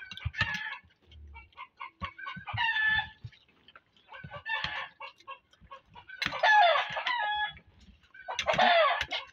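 Chickens calling: five calls about two seconds apart, the last two longer and the loudest, about six seconds in and just before the end.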